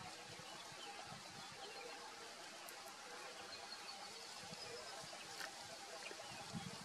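Faint outdoor ambience: a steady soft hiss with faint low hums, a thin high note held for about a second and a half from about three and a half seconds in, and a few soft low bumps near the end.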